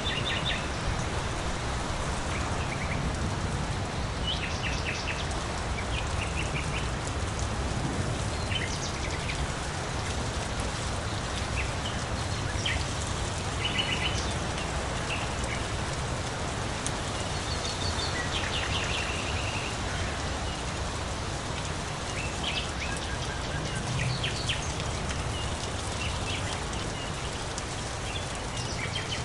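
Steady rain falling, with short bird chirps scattered through it, often in quick little runs.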